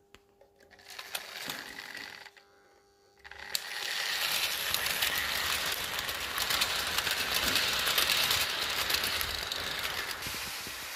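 Vintage 1950s Märklin HO E 18 electric model locomotive and its coaches running on metal track: a steady mechanical clatter and whirr of wheels and gears, quieter at first, then loud from about three and a half seconds in as the train passes close.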